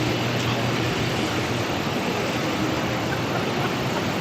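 Steady outdoor noise of vehicle traffic, with a low engine hum that stops about a second in and faint voices in the background.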